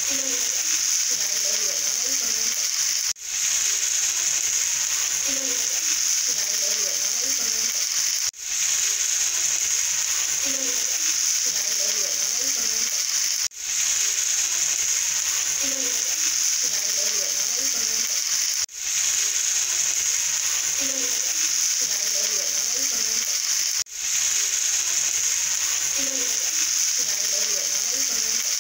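A looped background track: a steady high hiss with faint soft notes underneath, dropping out briefly and restarting about every five seconds.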